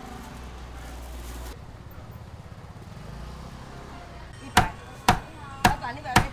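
Steady low background noise, then about four and a half seconds in a cleaver starts chopping on a board: sharp, evenly spaced chops, about two a second.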